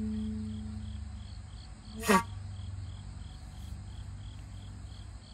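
Jinashi shakuhachi holding its last soft low note, which fades out over about two seconds, over steady rhythmic chirping of insects. About two seconds in comes a brief sharp sound that falls in pitch.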